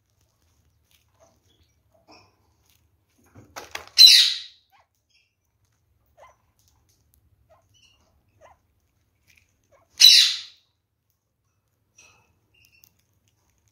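Red-fronted kakariki foraging in a tray of mixed seed: scattered faint pecks and seed clicks, with two loud, short, harsh noises about six seconds apart, each fading within half a second.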